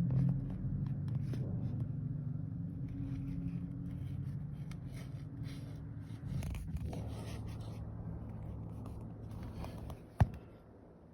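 Toyota 1JZ-GE straight-six engine running with a low hum that slowly fades, then a single sharp click about ten seconds in.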